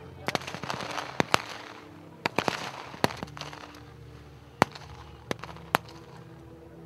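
Scattered rifle fire: single shots from several rifles at irregular intervals, about ten in all, coming thickly in the first three seconds and then thinning out.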